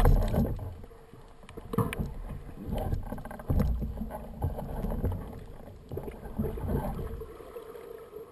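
Water noise heard underwater through a speargun-mounted camera: an uneven low rumble of water moving past the housing, with a few dull knocks.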